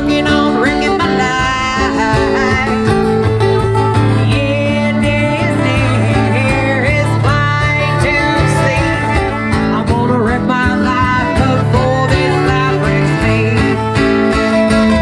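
Small live band playing country-style music, led by strummed guitars.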